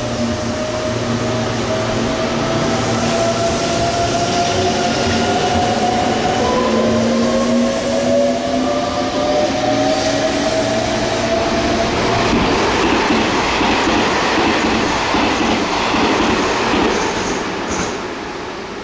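Meitetsu express electric train passing through a station at speed: its motors whine, rising slowly in pitch, then the loud rush and clatter of the wheels on the rails as the cars go by, fading near the end.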